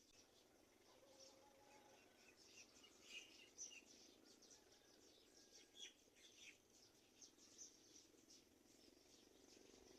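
Faint bird chirping: many short, high chirps and calls, a few louder ones near the middle, over a low steady hum.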